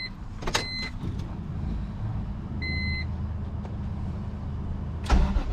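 Turbocharged BMW E46 M3's S54 inline-six starting and running steadily on its first start after the upper timing chain guide, VANOS solenoids and timing were redone, to check for an intermittent knock. Three short electronic beeps sound over it, and there is a thump near the end.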